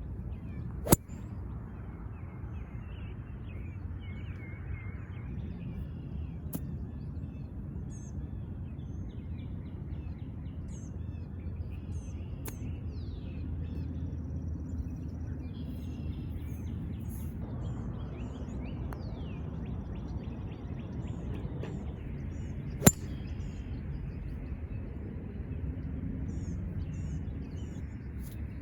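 Four sharp clicks several seconds apart, the loudest about two-thirds of the way through, typical of golf balls being struck by clubs. Under them is a steady low outdoor rumble with small birds chirping.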